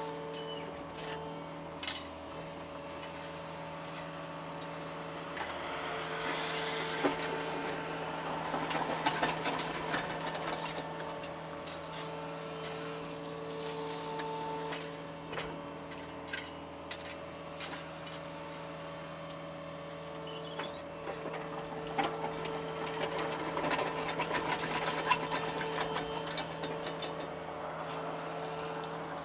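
John Deere 75 excavator running, heard from inside its cab: a steady engine hum that gets louder and rougher in two spells as the machine works, with scattered clicks and knocks.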